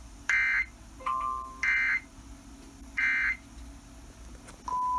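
Emergency Alert System end-of-message signal: three short digital data bursts, about a second and a half apart, marking the end of the broadcast warning. A brief pure tone sounds between the first two bursts, and a steady high beep begins near the end.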